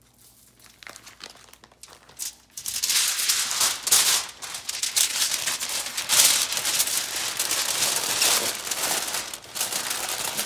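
Aluminium foil crinkling and crumpling as it is folded and crimped around a rack of pork spareribs, starting about two and a half seconds in. Before that there is only a faint patter of brown sugar sprinkled from a bag.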